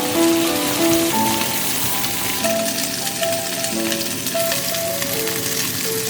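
Background music of slow held notes over a steady, bright hiss.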